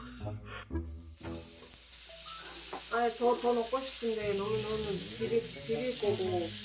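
Thin slices of beef brisket sizzling in a hot frying pan as they are laid in. The sizzle starts about a second in and keeps going.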